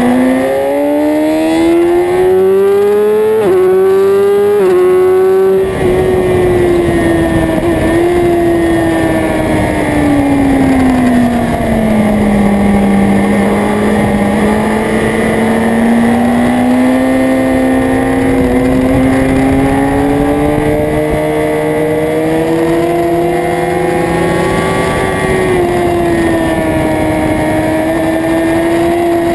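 Motorcycle engine at high revs on a race track: it accelerates hard with three quick upshifts in the first six seconds, the revs then fall away for several seconds, build slowly again for about ten seconds, and drop once more near the end.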